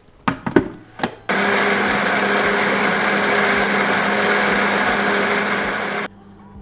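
Countertop electric blender puréeing chillies, garlic and water into a wet spice paste. A few knocks come first, then the motor starts about a second in, runs loud and steady, and cuts off suddenly near the end.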